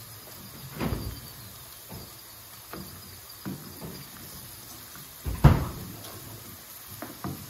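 A few scattered knocks and thuds of kitchen cupboard doors and things being handled, the loudest a sharp bang about five and a half seconds in.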